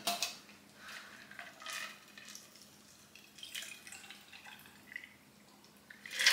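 Shaken cocktail poured in a thin stream from a metal shaker through a strainer into a glass of ice, trickling and dripping faintly. A louder knock sounds just before the end.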